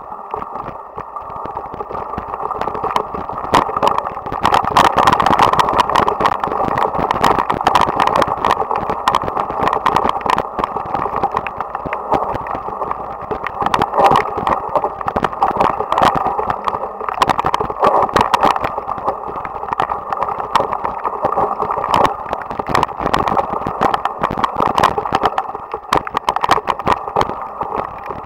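Mountain bike descending a rough, wet dirt trail, heard through a cheap action camera: a steady rushing of wind and movement with frequent irregular clicks and knocks as the bike and camera mount rattle over the bumps. It grows louder over the first few seconds as speed picks up.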